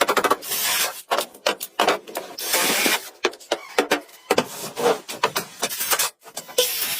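Construction work with hand tools: rapid knocks and taps mixed with a few longer scraping or rasping strokes.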